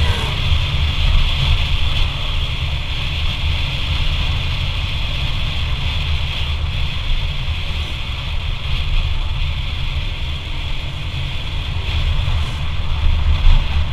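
Motorcycle under way: wind rushing over the microphone, with the engine and tyre noise running steadily underneath.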